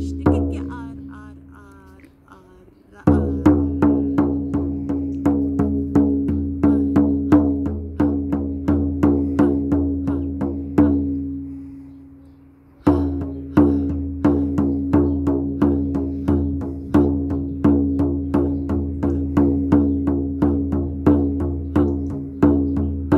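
Shaman frame drum beaten in a steady rhythm of about three beats a second, with a low ringing that carries between the beats. The drumming breaks off just after the start and again at about eleven seconds, the ringing dying away, and starts again with a hard beat about three seconds and thirteen seconds in.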